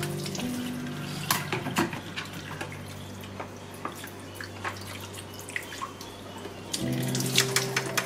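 Tap water running and splashing onto an espresso machine's drip tray and grille as they are rinsed in a stainless-steel sink, with a few sharp knocks as the parts are handled. Soft background music fades out early on and comes back near the end.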